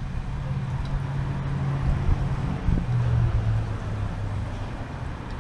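Low, steady hum of a motor vehicle's engine that drops in pitch about three seconds in, then fades, over outdoor background noise.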